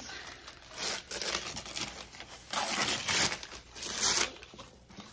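Brown paper wrapping crinkling and rustling as it is pulled off a book by hand, in three or four bursts.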